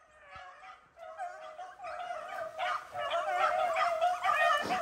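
A pack of beagles baying together as they run a rabbit's trail, many overlapping howls, faint at first and louder from about two seconds in.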